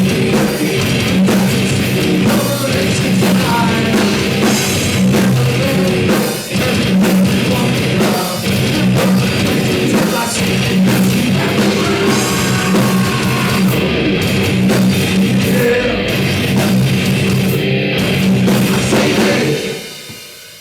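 Heavy metal band playing live, with distorted electric guitars, bass and drum kit, ending near the close of the song as the sound dies away.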